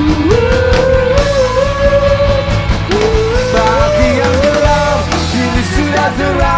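Live rock band performing: a male voice singing the melody over electric guitars and drums.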